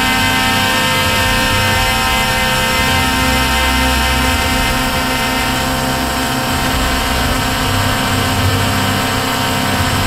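WLtoys XK X1 quadcopter drone's electric motors and propellers whining steadily in flight, picked up by the camera on board.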